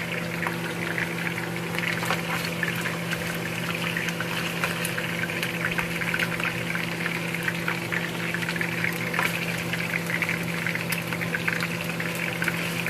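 Chunks of pork frying in hot oil: a steady sizzle with many small crackles and pops, over a steady low hum.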